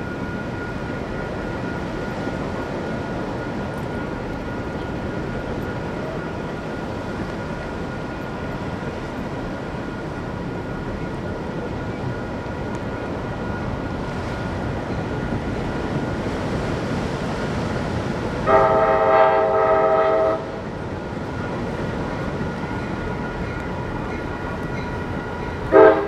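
Passenger-train locomotive multi-chime air horn sounding one steady blast of about two seconds for a grade crossing, over a steady background noise that swells slightly as the train nears. A second short blast starts near the end.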